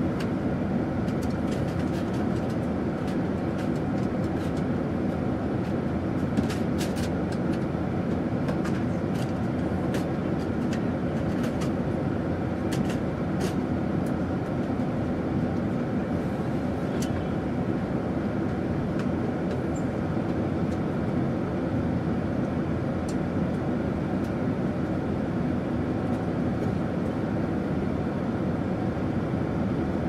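Airliner cabin noise in flight: a steady, even drone of engines and rushing air, strongest in the low range. Faint scattered clicks through the first half.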